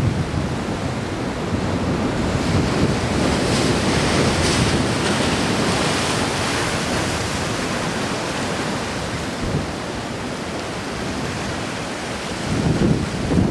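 Wind buffeting the microphone over surf washing against a harbour breakwater, a steady rushing noise. It swells briefly about four seconds in, and low wind rumbles return near the end.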